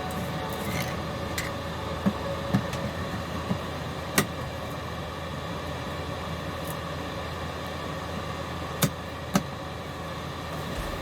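A steady mechanical hum, with a few sharp clicks or knocks in the first half and two more close together near the end.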